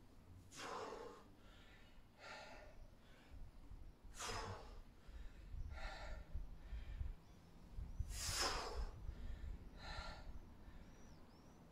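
A man breathing hard while doing bodyweight squats: a strong, forceful breath out about every four seconds, with softer breaths in between.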